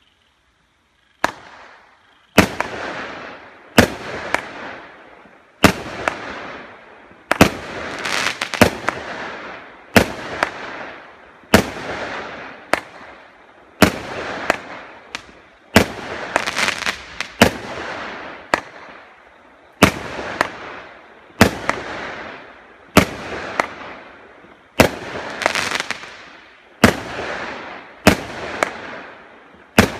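A 36-shot, 20 mm consumer firework cake firing shot after shot, starting about a second in and going off about once every one and a half to two seconds. Each shot is a sharp report followed by a fading crackle of stars.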